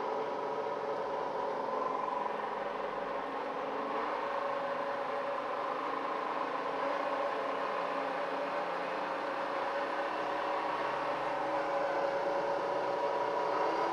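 Metal lathe running, its chuck spinning a turned metal spiral, with a steady whine from the motor and gearing.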